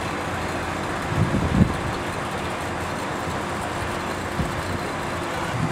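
A motorboat engine idling steadily under an even rushing noise, with a brief louder low sound about a second and a half in.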